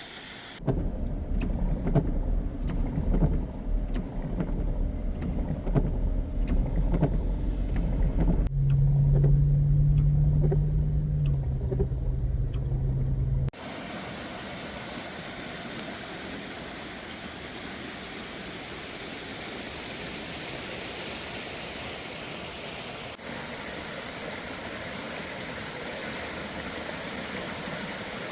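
Low rumble of a car driving, heard from inside the cabin, with a steady engine drone that drops in pitch partway through. About halfway in it cuts suddenly to the steady rush of a swollen, flooding river.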